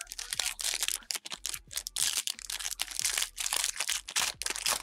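Shiny foil wrapper of a trading card pack crinkling and tearing as it is ripped open by hand: a dense run of sharp crackles.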